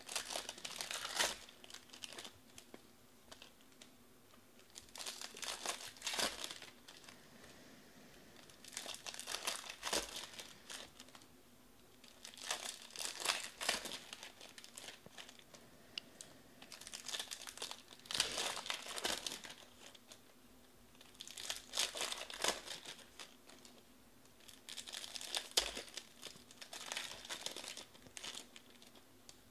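Foil trading-card pack wrappers crinkling as the packs are torn open by hand and the cards pulled out. The sound comes in bursts every three to four seconds, with short quiet gaps between them.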